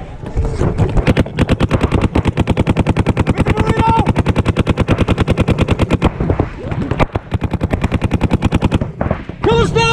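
Paintball markers firing long rapid strings of about ten shots a second, then shorter, looser bursts. A player shouts near the end.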